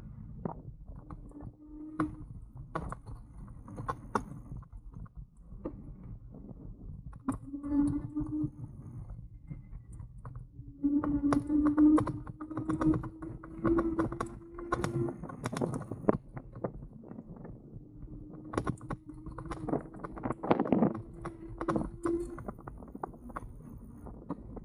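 An Engwe Engine Pro e-bike being ridden. The bike and its mounted camera rattle with many short clicks and knocks over a steady rumble, and the electric motor's steady whine comes and goes several times.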